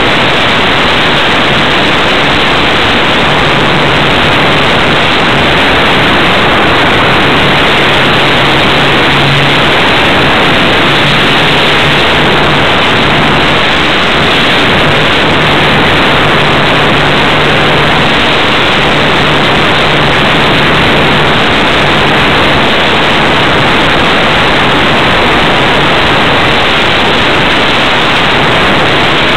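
Loud, steady rush of air over a radio-controlled model airplane's onboard camera in flight, with a faint low engine hum that comes and goes beneath it.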